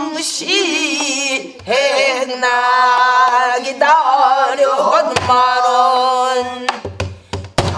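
A woman singing a pansori danga in a full voice with long held notes and wide vibrato, beating a buk barrel drum herself: a few drum strokes in the second half, several in quick succession near the end.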